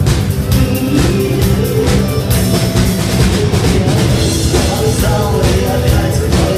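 Loud rock music with a steady drum-kit beat and guitar.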